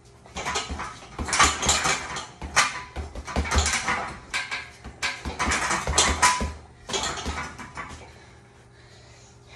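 Gloved punches and knee strikes landing on a hanging heavy punching bag: a fast, irregular run of dull thuds from about half a second in, stopping near the end.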